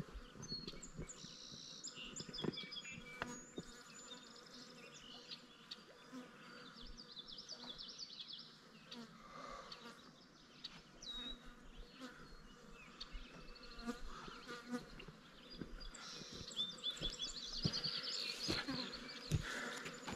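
Quiet riverbank ambience: an insect buzzing and birds chirping and trilling in the trees. A few footsteps come near the end.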